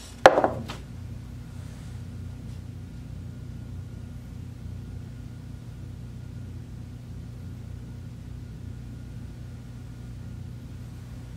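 A sharp knock about a third of a second in, with a lighter tap just after, then a steady low hum.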